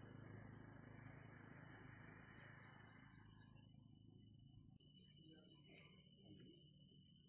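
Near silence with faint outdoor ambience: a bird gives two quick runs of about five high chirps each, a couple of seconds apart.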